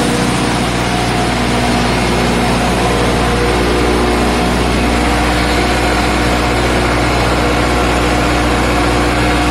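Generator set running steadily: a continuous engine drone with several steady hum tones.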